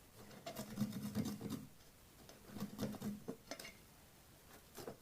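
Bitter kola nut being rubbed on a hand grater, rasping strokes in three bursts.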